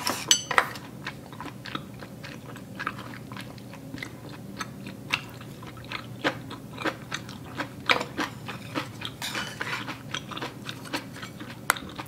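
A person chewing a mouthful of tteokguk (Korean rice cake soup), with irregular mouth clicks and smacks.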